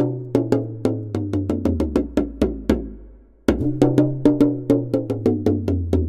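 Background music with a steady beat of sharp, clicky percussion over a bass line; it fades out about three seconds in and starts again half a second later.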